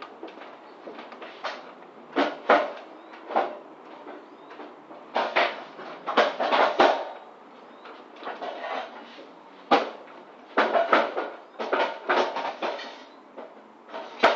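Irregular knocks and clatters of load-securing gear, ratchet straps, buckles and fittings, being handled and dropped on the floor of a van's cargo box, over a steady low hum.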